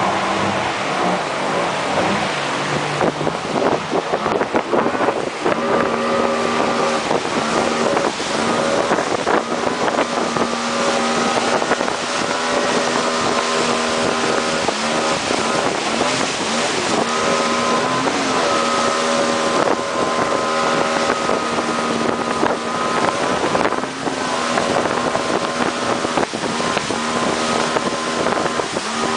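Outboard motor of a wooden river pirogue running steadily at speed through rapids, a constant engine note over the rush of water and spray along the hull, with wind on the microphone.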